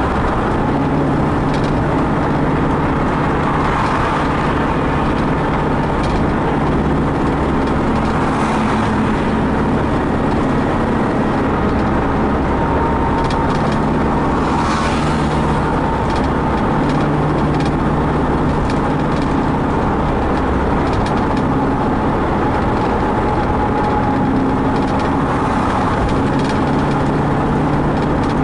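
Steady drone of a vehicle's engine and tyres at cruising speed on a highway, with a low engine hum and road noise and a few faint clicks.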